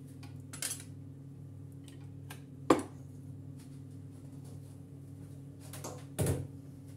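A few short clinks and knocks of kitchen utensils and dishes being handled: a small one about half a second in, the loudest near three seconds, another just after six seconds, over a steady low hum.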